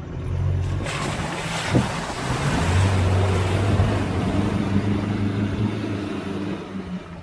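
Off-road 4x4 engine revving hard while its wheels churn through deep mud and water, with a steady rush of spray. The engine note climbs about four seconds in. The truck is bogging down in a mud pit too deep to drive through.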